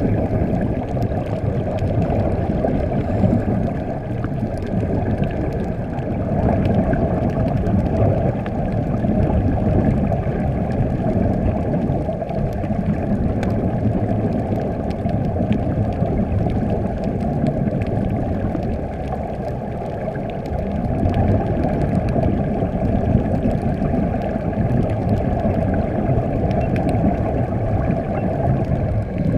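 Steady, muffled underwater noise heard through a waterproof camera housing: a low rumble with air bubbles from divers' and helmet air supplies.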